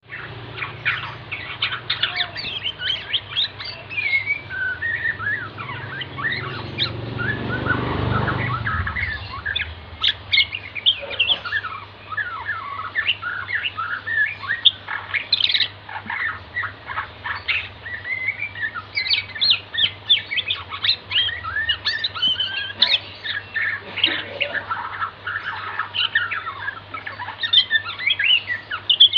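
Murai batu (shama) song: a fast, varied stream of chirps and gliding whistles, played as a lure to get young shamas singing. A steady low hum runs underneath, and a brief low rumble swells around eight seconds in.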